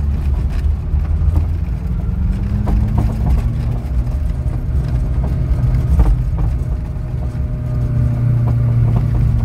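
Volkswagen Kombi's water-cooled inline-four engine pulling hard in first gear up a steep dirt road, the van heavy with water tanks. The engine note rises a little about two seconds in and then holds steady, with scattered knocks over the road.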